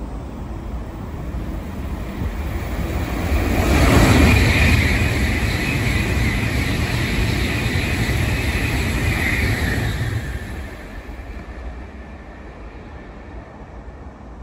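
Shinkansen bullet train passing straight through a station at speed without stopping: a rushing noise builds, swells suddenly as the nose arrives about four seconds in, holds as a steady rush while the cars go by, then fades after about ten seconds as the train draws away.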